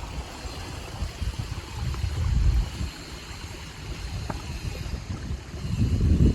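Wind buffeting the microphone in uneven low gusts, growing stronger near the end.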